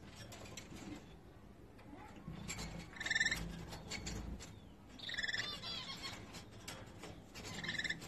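Caged parrots calling: three short, high-pitched calls, spaced about two seconds apart, over a low background.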